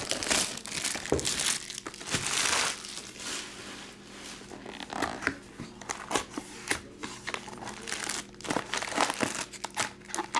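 Plastic shrink wrap being peeled, torn and crumpled off a trading-card box, crinkling loudest in the first few seconds. After that come scattered rustles and crinkles as the cardboard box is opened and foil card packs are handled.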